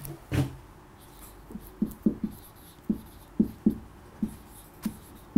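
Dry-erase marker squeaking on a whiteboard in a string of short, separate strokes as words are written.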